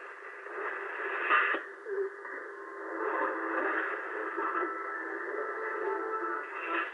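Shortwave AM broadcast audio from an AOR AR3000A scanner's loudspeaker: narrow, tinny reception with tones in it, its sound shifting several times as the receiver is tuned onward across the 31-metre band.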